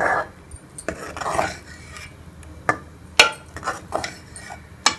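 Metal spoon stirring vermicelli custard in a steel pot. It clinks sharply against the pot about seven times, with softer stirring sounds in between.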